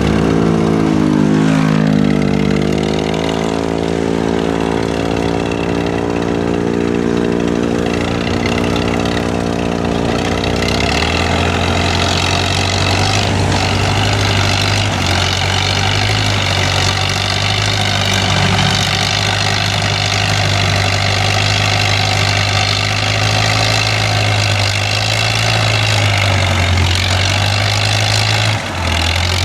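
Heavy diesel engine running. Its revs drop and settle in the first few seconds, then it runs steadily with a deep low hum.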